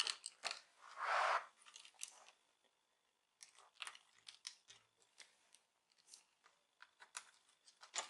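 A safety pin prying the small rubber screw covers out of a laptop's plastic screen bezel. A few sharp clicks and a short scrape come about a second in, followed by scattered light ticks.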